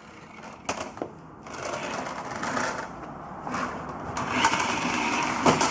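Remote-control toy car's small electric motor whirring as the car drives around, with a couple of clicks about a second in.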